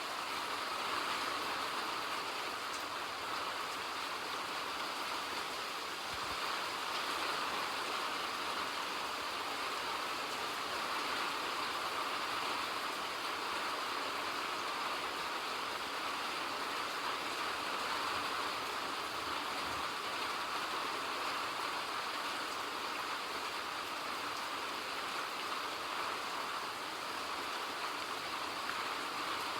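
Steady rainfall, an even hiss of rain that keeps up without a break.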